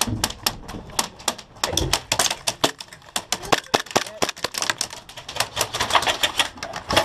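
Airsoft guns firing: many sharp cracks and clicks in irregular, rapid runs, including the player's KWA MP9 gas blowback pistol.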